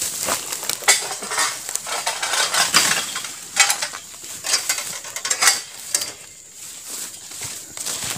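A mechanical jerk-sickle palm harvesting pole (egrek sentak) clanking and scraping against an oil palm's fronds and trunk: a string of irregular metallic knocks and scrapes, spaced about a second apart.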